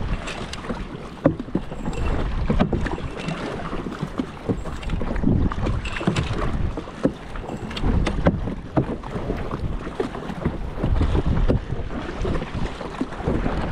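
Kayak paddles dipping and splashing through the water, swelling with each stroke, with scattered light knocks. Wind buffets the microphone.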